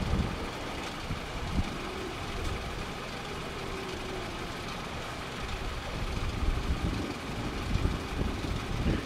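Steady engine hum from distant traffic or aircraft, with wind buffeting the microphone in irregular low gusts.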